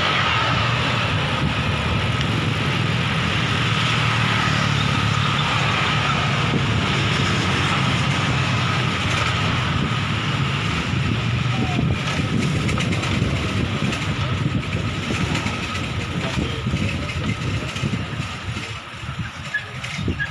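Wind buffeting the microphone, with road noise, on a moving bicycle. In the second half the sound turns uneven and rattly as the tyres roll over brick paving blocks.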